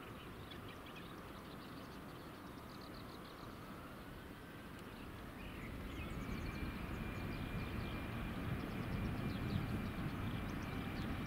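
Airbus A320-family airliner's twin turbofan engines spooling up for the takeoff roll: a whine rises in pitch over the first several seconds, then holds steady, as a low rumble grows louder from about six seconds in. Faint bird chirps sound now and then.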